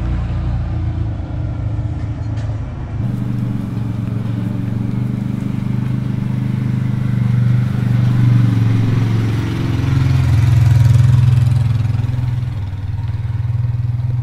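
ATV (four-wheeler) engine running, its note shifting a few times and growing louder around two-thirds of the way through before easing off again.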